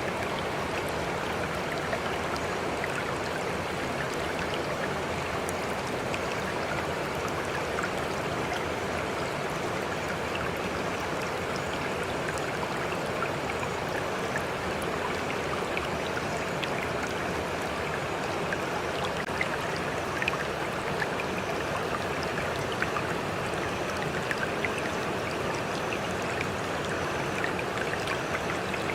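Steady rush of flowing water, a stream-like running sound, with scattered small splashes and drips on top.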